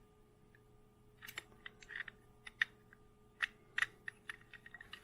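Faint, irregular light clicks and taps of small die-cast metal toy tanks being handled, starting about a second in.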